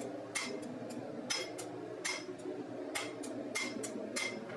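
Square-faced hammer striking hot steel bar on an anvil, about nine light blows at an uneven pace, each with a short metallic ring, as the knife heel is drawn down with the corner of the hammer.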